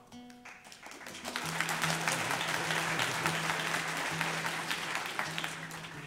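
Live audience applauding, swelling about a second in and dying away near the end, while acoustic guitar notes and a held low note carry on underneath.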